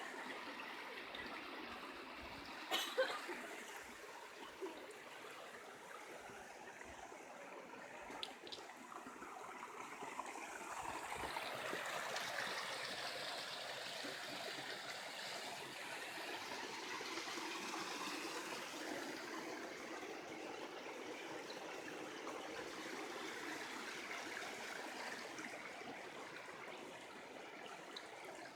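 Water running in a small stream, a steady rushing that grows louder about ten seconds in. A few sharp knocks sound early on, the loudest about three seconds in.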